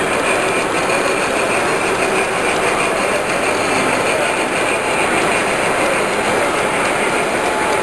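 G-scale model steam locomotive and log cars rolling along brass track, a steady running noise without a clear beat.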